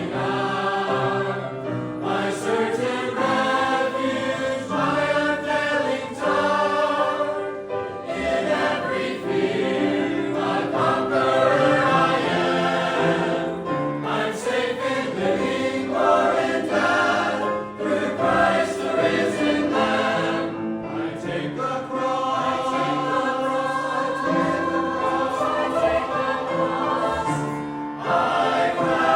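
Church choir singing a gospel hymn in several parts, held notes with short breaks between phrases.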